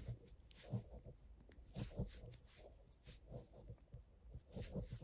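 Large knitting needles clicking and tapping softly at an uneven pace as stitches are knitted.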